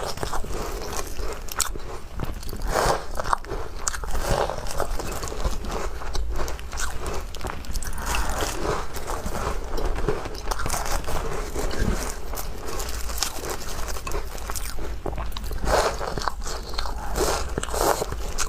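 Chewing crumbly walnut shortbread cookies, with crisp crunching and crackling bites throughout.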